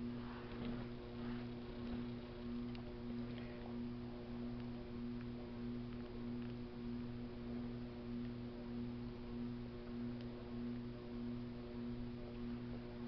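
A steady low electrical hum with a few faint clicks and light eating sounds as a metal fork picks at a plate of macaroni salad.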